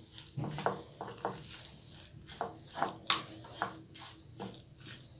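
Metal spoon stirring damp rice flour and water in a bowl, scraping and tapping against the bowl in a rhythm of about three light clicks a second, with one sharper click about three seconds in. The flour is being mixed into a thin paste.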